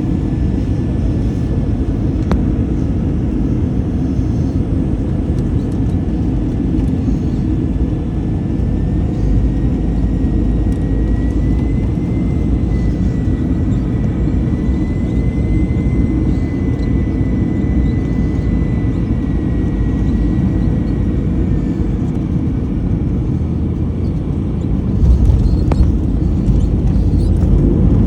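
Airbus A321-200 airliner cabin noise: a steady deep rumble with a faint high engine whine that rises a little in pitch and later falls away. The rumble grows louder near the end.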